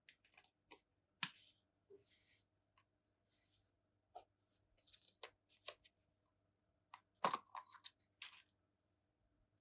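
Slime being mixed with cream and squeezed by hand: irregular sticky clicks and small pops with short airy crackles, busiest near the end.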